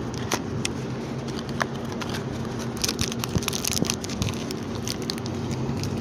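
Cardboard parts box being opened and the plastic bag around a new camshaft position sensor crinkling: a run of short crackles and clicks, thickest about three seconds in.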